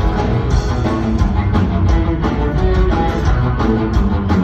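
Rock band playing a loud instrumental passage between sung verses of a punk-rock song, with a steady drumbeat under the band.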